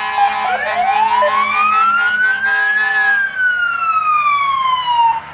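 Siren on a fire department pickup truck sounding one wail: the pitch rises for about three seconds, then falls, and it cuts off near the end.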